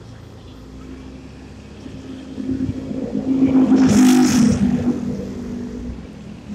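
Motor scooter engine running on the move, growing louder from about two seconds in. A rush of noise peaks about four seconds in, then eases.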